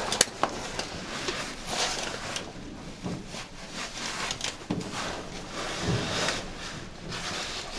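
Caver working along a rope through a tight rock squeeze: a few sharp clicks of metal rope gear near the start, then bouts of rustling and scraping as the suit and gear rub against the rock.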